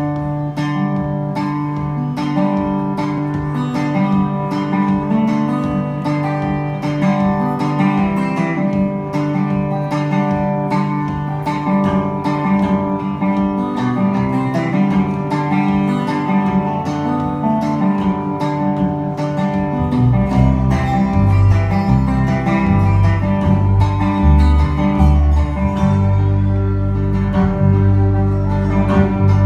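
Instrumental intro of a country song: a picked acoustic guitar with a lap slide guitar playing over it. Electric bass notes come in about two-thirds of the way through.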